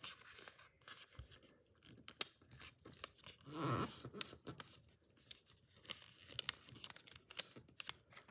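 A sheet of origami paper being folded and creased by hand: rustling and crinkling with many small sharp ticks as fingers press the folds down against a table, and a louder rustle a few seconds in.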